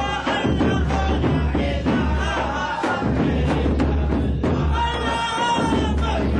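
Group of men chanting a devotional song together, with drum beats under the voices.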